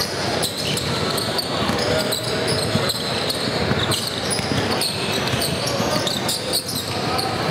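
Basketball game sounds in a gymnasium: a ball bouncing on the hardwood floor amid the continuous chatter and calls of players and spectators, echoing in the large hall.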